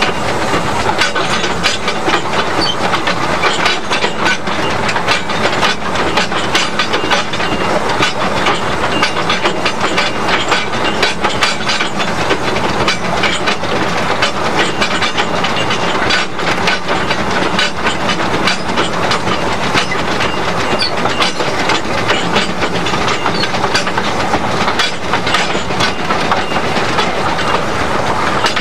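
Fowler tank steam locomotive running on two-foot gauge track, heard from its cab: a steady, dense clatter of wheels and motion that keeps up throughout.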